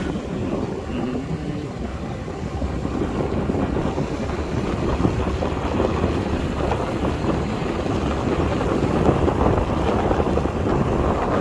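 Wind buffeting the microphone on a moving Honda Activa scooter, with the scooter's engine and road noise running underneath. It grows somewhat louder a few seconds in.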